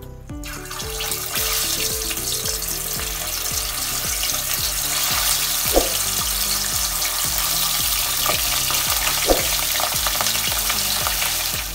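Fish pieces deep-frying in hot oil over a high flame: a loud sizzle starts about half a second in as the pieces go into the pan and builds steadily, with two sharp ticks partway through.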